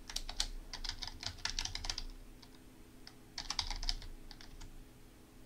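Typing on a computer keyboard in two quick bursts of keystrokes, the second starting about three seconds in.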